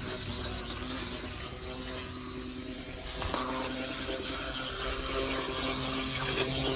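Small electric motor of an HO-scale brass model streetcar whining steadily as it runs, with the noise of its wheels on the rails and a brief clack about three seconds in.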